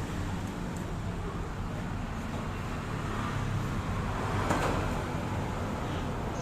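Lung Pang LP-520B standing dough sheeter running steadily, its electric motor and rollers humming.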